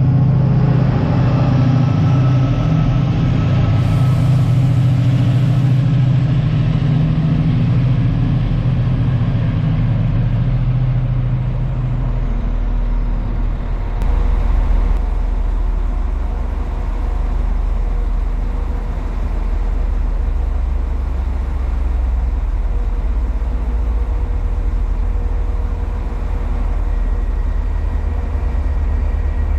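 Diesel train engine running with a steady hum over a deep rumble. The higher engine tone drops away about twelve seconds in, leaving the low rumble.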